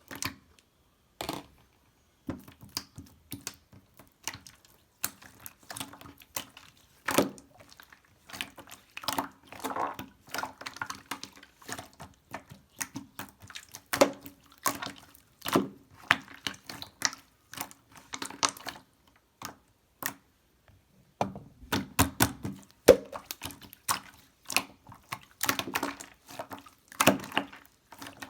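Slime being squished and pressed by hand, giving irregular wet clicks and pops.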